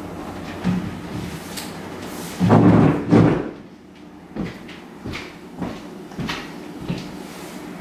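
Household knocks from setting a dining table and moving its wooden chairs: two loud knocks close together about two and a half seconds in, then a run of lighter clicks and taps.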